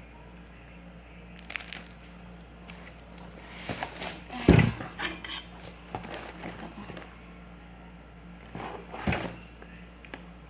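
Handling noise from unpacking a delivery box: rustling and clattering of the packaging, with a sharp thump about four and a half seconds in and a smaller knock near the end, over a faint steady hum.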